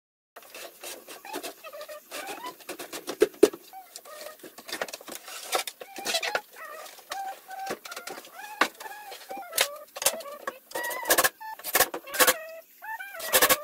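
Birds calling over and over in short, bending calls, mixed with knocks and clatter as a large cabinet panel is handled. Near the end come several sharp strokes as a cordless drill drives the screws that join the cabinet.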